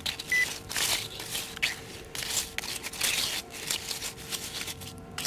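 Wet sand and pebbles crunching and scraping in a run of short rough strokes as a freshly dug pile is searched through for a metal-detector target. One short high electronic beep from the detector sounds near the start.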